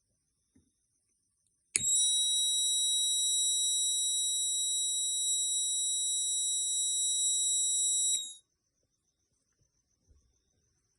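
Science-model fire alarm sounding one continuous high-pitched tone for about six seconds. It starts suddenly about two seconds in and cuts off.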